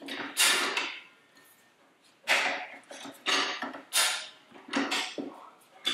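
Rabaconda tire changer's bar levering a stiff motorcycle tire's bottom bead off a spoked rim: a series of short scraping and creaking noises, with a pause about a second in.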